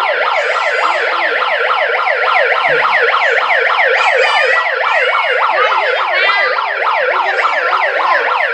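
Electronic toy siren sounding a loud, fast yelp: quick repeated pitch sweeps, about four a second, running without a break.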